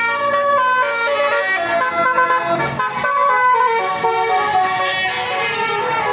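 A bus's basuri musical air horn playing a tune, its tones jumping from note to note, with a brief low rumble underneath about two and a half seconds in.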